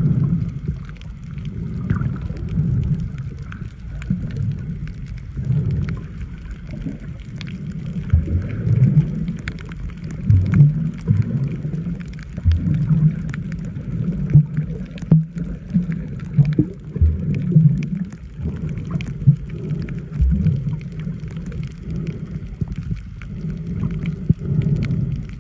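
Underwater sound picked up by a camera held below the surface over a coral reef: a muffled low rumble of moving water that swells and dips irregularly, with faint scattered clicks.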